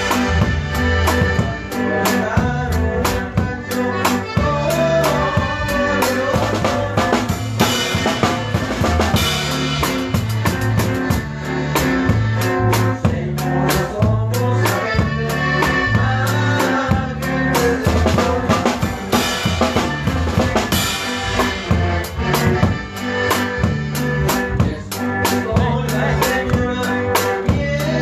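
A conjunto band playing a corrido: a drum kit with bass drum and snare keeps a steady beat under a stepping bass line and melody instruments.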